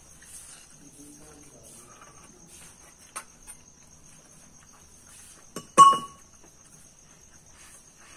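Crickets chirring steadily in the background while steel dishes and spoons clink on the floor. About six seconds in there is one loud metal clank of a steel utensil that rings briefly.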